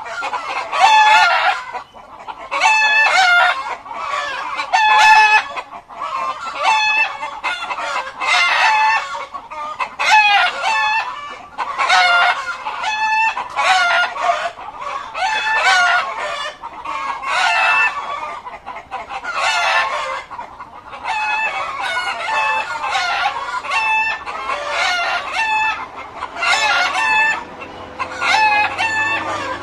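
A flock of chickens in a coop calling loudly, with repeated overlapping squawks and clucks about once a second.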